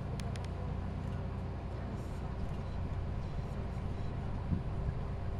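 Steady low rumble of outdoor arena ambience, with a few sharp clicks about half a second in.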